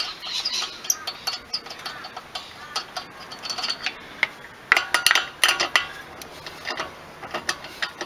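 Wheel nuts being undone from a car's alloy wheel by hand and with the wheel brace: a run of small metallic clicks and clinks, with a louder cluster of clinks about five seconds in.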